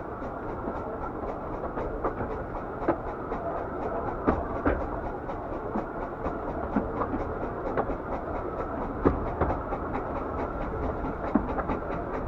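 Narrow-gauge railway carriage on the move: a steady running rumble with frequent sharp clicks and clacks from the wheels over the track.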